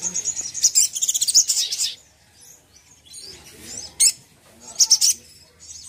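Sunbird (sogok ontong) song: high, quick chirping notes run together in a fast trill over the first two seconds. Short sharp calls follow about four and five seconds in.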